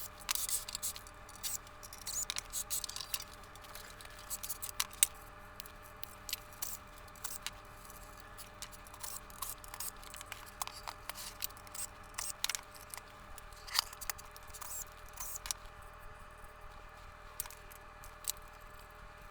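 Irregular clicks, taps and small clatters of hand tools and metal parts as a Sansui 4900Z stereo receiver is taken apart, with a faint steady hum underneath.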